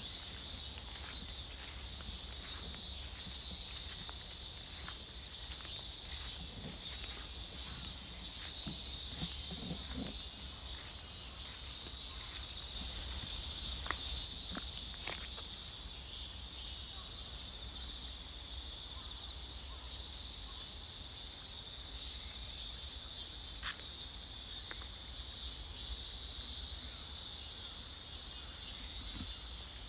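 Field insects chirping in a dense chorus of steady, repeating high pulses, over a low steady rumble, with a few faint footstep-like clicks.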